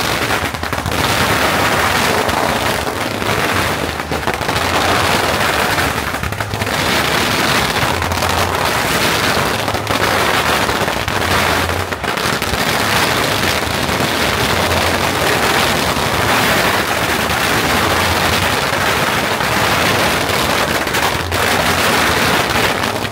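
Massed strings of firecrackers going off in a loud, unbroken barrage of rapid bangs and crackles that runs on without a pause.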